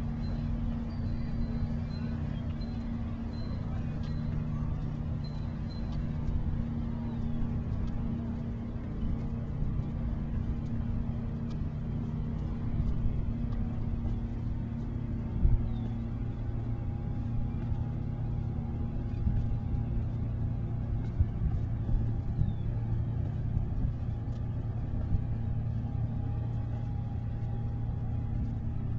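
Steady low rumble of motor engines, with several humming tones that hold and then shift in pitch. A few sharp knocks stand out, the loudest about halfway through.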